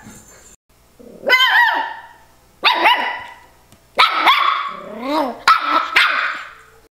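Miniature schnauzer puppy complaining with a string of about five drawn-out, whiny barks, roughly one a second, one of them lower in pitch about five seconds in.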